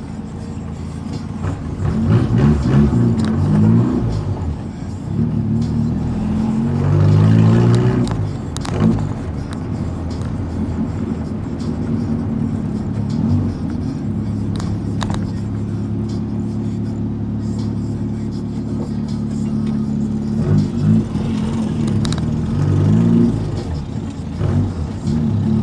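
Volkswagen Gol's engine through a loud aftermarket exhaust, rumbling as the car drives. It revs up and climbs in pitch a few times, with a stretch of steady cruising in the middle.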